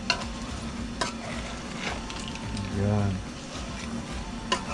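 Shell-on shrimp sizzling in sauce in a frying pan as a metal ladle stirs them, with a few sharp clicks of the utensil knocking against the pan.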